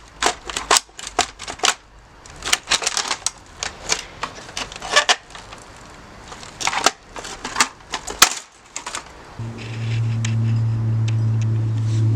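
Rapid, irregular sharp knocks and cracks of a coffee machine's casing and parts being smashed and broken apart. About three-quarters of the way through, the knocks stop and a steady low hum begins.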